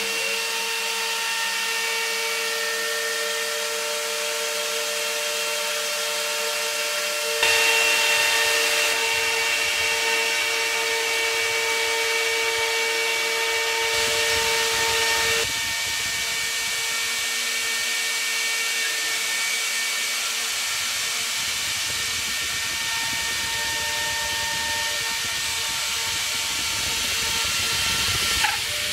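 CNC router spindle running with a steady high whine while a ball-nose bit takes a finishing pass through a mahogany pattern. The cutting grows louder for several seconds partway through, then settles back.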